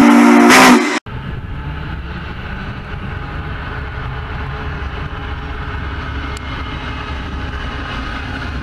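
A loud train horn sounds and cuts off abruptly about a second in. Then GE diesel freight locomotives, a BNSF engine followed by a leased CSX GEVO, rumble steadily past at close range.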